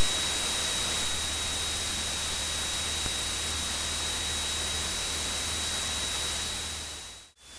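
Steady electronic hiss of the cockpit intercom audio feed, with a thin, steady high-pitched whine and a faint low hum. It fades out to a brief silence near the end.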